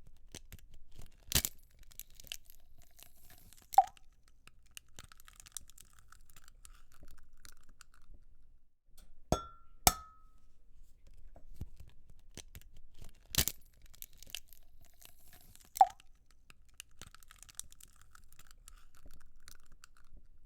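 Eggs being cracked: sharp taps against a hard rim, several of which leave a brief ringing tone, with fine crackling of the shells being broken open between the taps.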